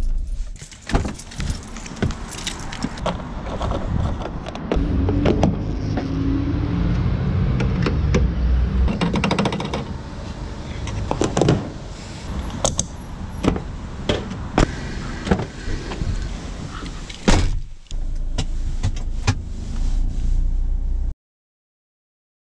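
Van sounds in quick succession: a steady low engine rumble with repeated clicks and knocks of a door being opened and shut. The sound cuts off suddenly near the end.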